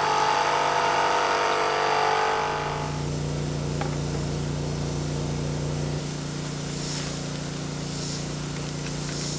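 Steady low machine hum, with a higher whining tone over it that fades out after about two and a half seconds.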